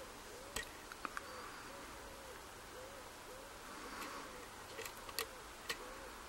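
Faint scattered clicks of a steel hook pick probing and tapping the pin stacks of a pin-tumbler euro cylinder under light tension, a few isolated ticks about half a second and a second in and a cluster near five seconds. Behind them a faint short low call repeats about twice a second.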